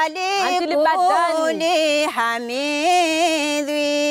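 A woman singing a deba, a Mayotte Islamic devotional song, solo and unaccompanied; after a run of gliding, ornamented notes she holds one long note with a slight waver from about halfway through.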